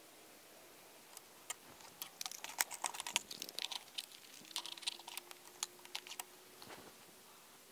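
Rapid irregular clusters of small clicks and taps from handling the FX Impact MKII air rifle at its action, with no shot fired. A faint steady hum comes in about halfway through.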